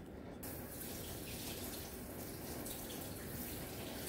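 Kitchen faucet running water into the sink, a steady rush that starts abruptly about half a second in.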